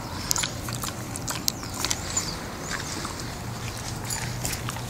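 English Coonhound chewing a treat, with irregular crunches and clicks over a low steady hum.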